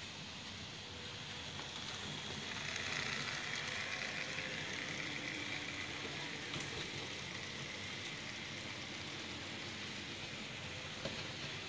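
Model trains running on a Märklin metal-track layout: a steady rolling hiss of small wheels on rail, swelling about two and a half seconds in, with a faint motor hum beneath it.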